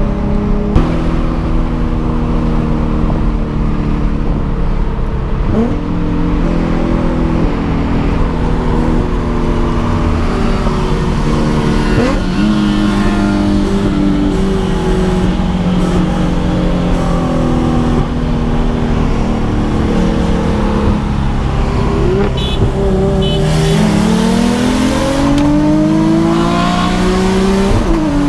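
Nissan 350Z's V6 engine running hard under acceleration. Its pitch steps sharply at gear changes about 6 and 12 seconds in, then revs up in a long rise near the end before another shift.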